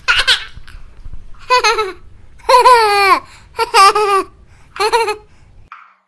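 High-pitched, child-like laughter: a falling giggle repeated about five times, over a low rumble that stops shortly before the end.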